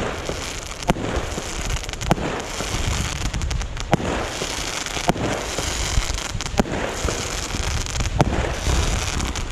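Aerial fireworks going off: a series of sharp bangs, one every second or two, over continuous crackling and rumble from the bursting shells.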